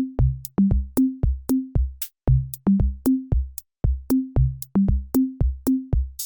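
Background music: an electronic drum-machine beat with short bass notes, about four to five hits a second.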